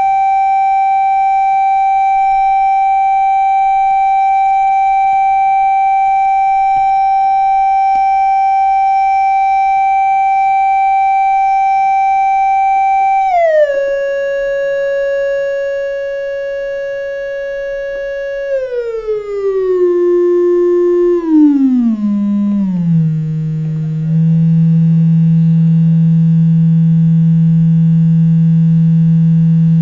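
Loudspeaker driven by a homebuilt 25 W transistor audio power amplifier, playing a sine test tone. The tone holds high and steady, drops a step about 13 seconds in, then glides lower in stages and settles into a steady low tone about 24 seconds in.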